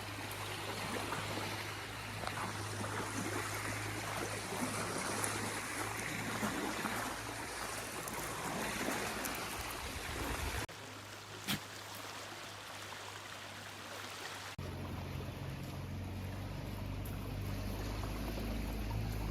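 Running water rushing and trickling steadily, in three stretches joined by abrupt cuts. A single short click comes about halfway through.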